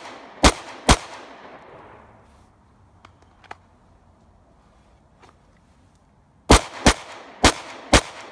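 9mm Glock 19 Gen 4 pistol firing: two shots about half a second apart near the start, then a pause with two faint clicks, then four quick shots near the end. Each group of shots trails off in echo.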